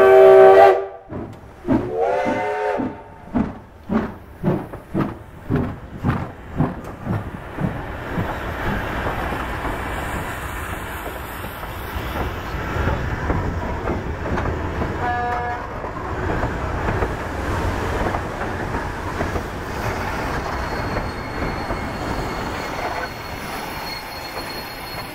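Steam locomotive's chime whistle cuts off just under a second in. The engine then starts away with heavy exhaust chuffs that quicken and blur into a steady rumble of the train rolling past, with a brief high toot about fifteen seconds in.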